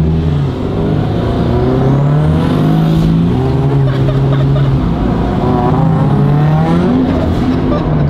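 Turbocharged Scion FR-S's 2.0-litre flat-four engine running under load while driven, its pitch holding, dropping and rising again as the revs change. A thin high whistle sweeps upward twice.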